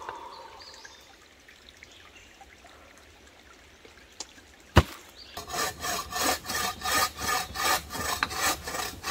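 A hand saw cutting wood in quick, even strokes, about three a second, starting a little past halfway. A single sharp knock comes just before the sawing; before that there is only faint background.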